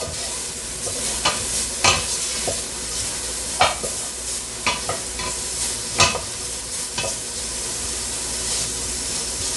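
Chopped bacon sizzling and frying in a stainless steel pot as it is stirred with a wooden spoon. The spoon knocks sharply against the pot every second or so, and the knocks stop near the end.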